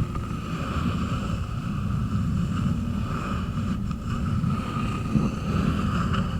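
Rapid fingertip tapping and rubbing on wood, run together into a dense, steady low clatter with no separate strikes standing out.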